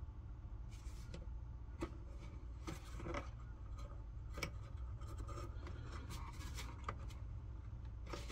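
Scattered small clicks and rubbing of hands handling plastic parts and wires inside an Instant Pot Duo's base while fitting a new switch, over a steady low hum.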